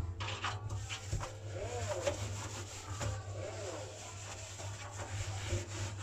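Scrubbing inside a front-loading washing machine, rubbing strokes against the drum rim and rubber door seal, quickest in the first second.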